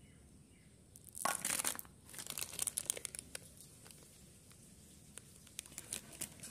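Plastic wrapper of a chocolate bar crinkling and being torn open by hand: a loud burst of crinkling about a second in, more crackling soon after, then scattered small crackles.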